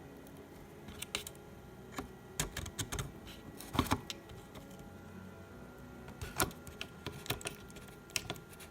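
Irregular clicks, taps and light knocks of small plastic and metal parts being handled, the loudest about four seconds in.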